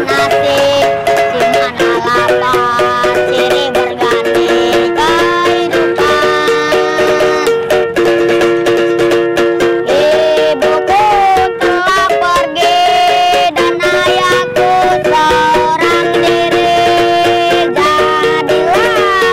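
Background music: held notes under a melody line that slides up and down in pitch.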